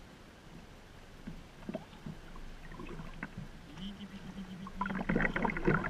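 Water lapping quietly around sea kayaks, then a burst of paddle splashes and small knocks on the hulls near the end as the paddling starts again.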